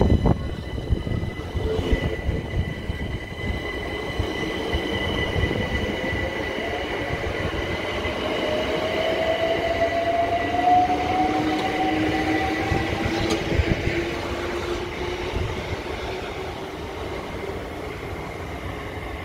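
Two Class 376 Electrostar electric multiple units pulling away, their traction motors whining and rising in pitch as the train accelerates, over a steady high tone and irregular low knocking from underneath. The sound is loudest about two-thirds of the way through and eases as the train draws away.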